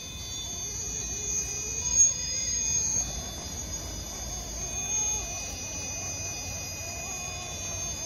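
RC rock crawler's electric motor and drivetrain whining steadily under throttle as it climbs rock at a crawl. There is a sharp knock about two seconds in.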